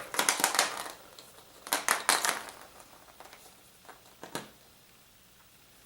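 Surprise egg and its wrapping being handled: short bursts of crinkling and light tapping in the first couple of seconds, a single sharp click about four seconds in, then quiet.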